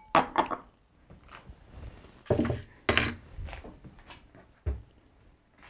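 Glass bowls and dishes being moved and set down on a kitchen counter: a few separate clinks and knocks, one about three seconds in with a short ringing glass clink, and a dull thump near the end.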